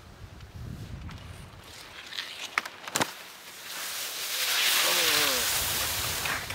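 Skis scraping and sliding across packed snow close by, building to a loud hissing rush about four to six seconds in. A sharp knock comes about three seconds in.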